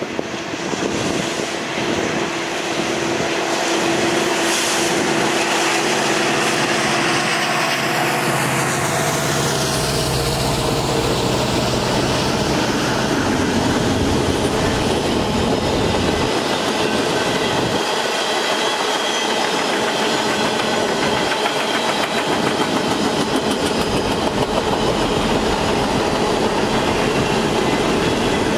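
A Kansas City Southern diesel locomotive leading a freight train goes by, its engine droning with a high whine that glides down in pitch during the first third. Then a long string of covered hopper cars rolls past, wheels clicking steadily over the rail joints.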